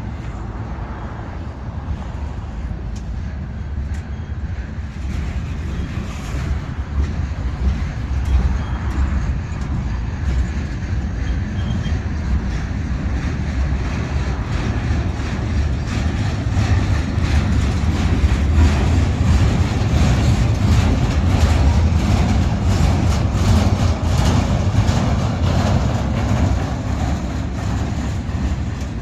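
Double-stack intermodal freight train of well cars passing close by: a steady low rumble of steel wheels on rail, with frequent clicks and clatter. It grows louder through the middle and eases slightly near the end.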